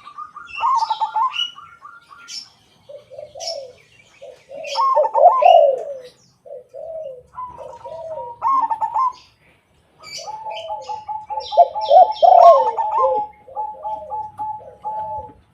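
A crossbred zebra dove (perkutut) and a white derkuku dove cooing against each other in repeated phrases: quick trilled coos at a higher pitch alternate and overlap with lower, rounder coos, with a brief pause about two-thirds of the way through. Faint high chirps are heard over the cooing.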